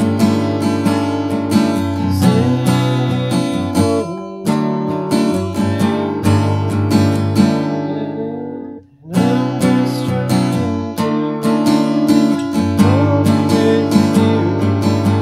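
Acoustic guitar strummed in open chords, capoed at the second fret with the high E string tuned down to D. A little past halfway the strumming pauses and the chord dies away for a moment before the strumming starts again.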